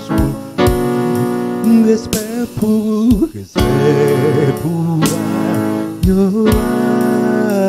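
Electronic keyboard playing a gospel worship song over a steady drum beat, with a man singing along into a microphone.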